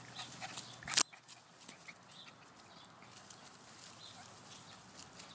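Fox terrier puppies chewing and rustling in the grass: small scattered clicks and crunches, with one sharp knock about a second in.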